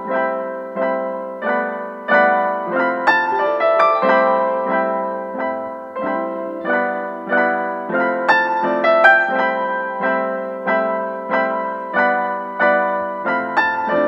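Background piano music: notes and chords struck at an even, unhurried pace, each left to ring and fade.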